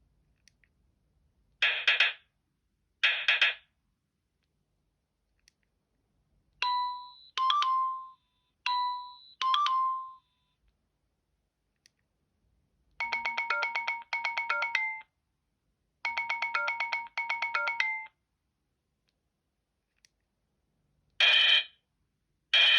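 Alcatel OT 715 mobile phone playing a series of its built-in ringtones, each a short electronic phrase played twice with silent gaps in between. First come two short buzzy chirps, then a pair of two-note beeps, then a quick pulsed melody twice, and near the end two more short chirps.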